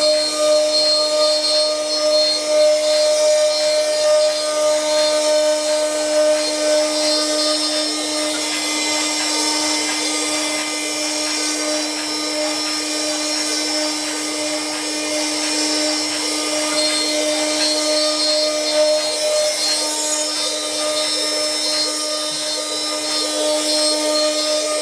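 Spindle motor of a CNC wood turning and engraving machine running at a steady high pitch, over a dense hiss of the cutter working wood. A little louder for the first several seconds, then even.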